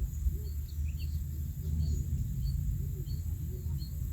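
Outdoor nature ambience: a steady high drone of insects, a short chirp repeating about every half second, and a low rumble underneath.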